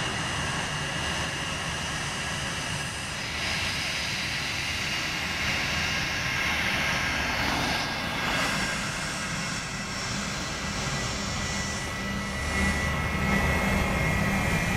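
Airbus A320-232's IAE V2500 turbofan engines at taxi power: a steady whine over a low rumble. It grows louder near the end as the jet rolls close by.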